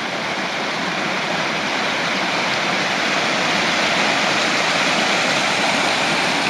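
The Bode river's water cascading over rocks in a small waterfall: a steady rushing that grows a little louder over the first couple of seconds and then holds.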